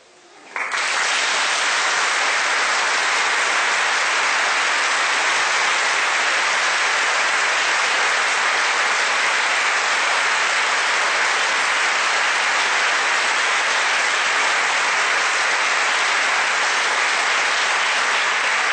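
Congregation applauding steadily, starting abruptly about half a second in and easing off near the end.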